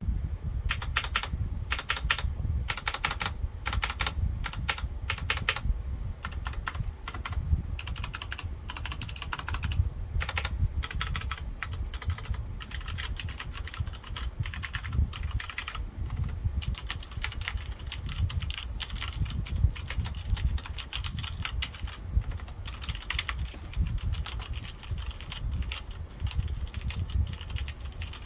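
Cherry MX Board 2.0S mechanical keyboard being typed on continuously: a fast, uneven stream of key clacks with no pause.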